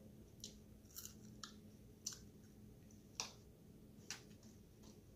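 Quiet eating sounds: someone chewing salad and picking at it with a fork in a plastic takeout container, giving about seven short clicks and crunches spaced roughly half a second to a second apart.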